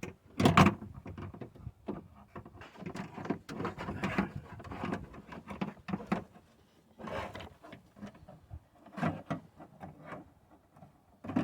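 Irregular metal knocks and rattles, with one loud clunk about half a second in, as a power-window regulator and motor assembly is worked into a truck's inner door panel.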